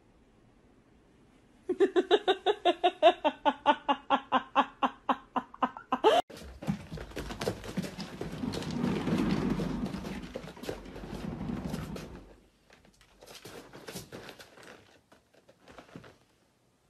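A loud pitched sound pulsing rapidly, about five times a second, for some four seconds. Then a kitten runs in a cat exercise wheel: the wheel rumbles, building and then fading, followed by a few scattered knocks.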